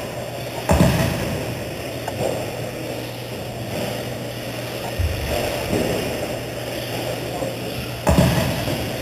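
Electric RC stadium trucks running on an indoor track, with indistinct voices in a large, echoing hall. Three sudden low thumps come about a second in, halfway through and near the end.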